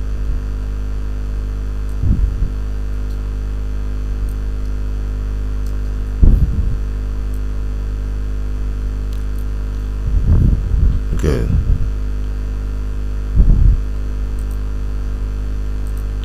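Steady electrical mains hum in the recording, an even low buzz with a stack of overtones, interrupted a few times by brief low bursts.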